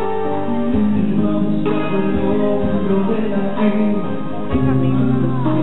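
Live song: a male singer's voice over acoustic guitar accompaniment, with sustained melodic notes and a bass line.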